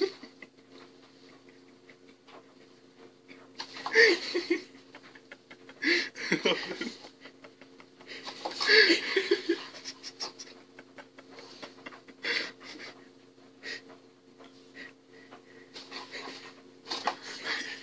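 A person's soft, breathy laughter in short bouts, about five times, over a steady low hum.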